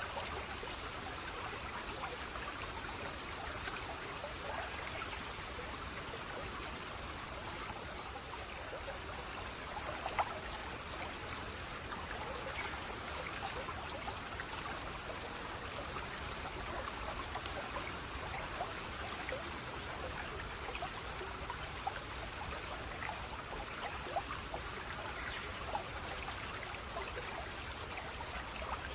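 Flowing water trickling and splashing steadily, with scattered small drips and splashes standing out now and then.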